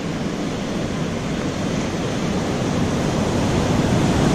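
Rough ocean surf breaking and washing up the beach, a steady rush that grows a little louder toward the end.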